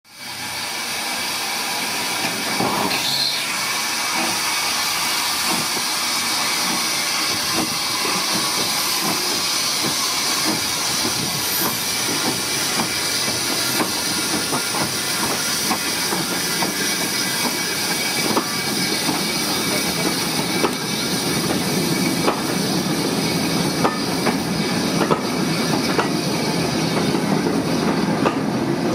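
NCB No.49, an 0-6-0 saddle-tank steam locomotive, hissing steam as it starts away with its train of carriages. From about two-thirds of the way in, the clatter and rumble of the moving train grows louder under the hiss.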